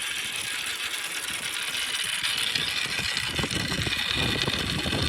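Many small balls rolling and clattering down a wooden marble-run ramp: a dense, continuous rattle of tiny clicks, with a lower rumble building over the last couple of seconds.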